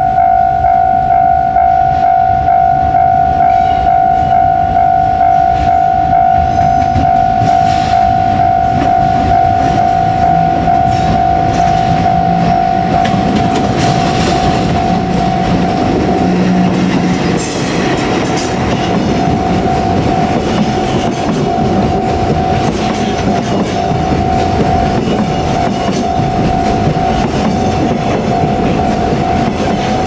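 JR Freight ED76 electric locomotive passing at a level crossing, hauling a long container train, its wheels clattering over the rail joints as the wagons roll by. Over it the crossing's warning bell rings with a steady repeating ding-ding.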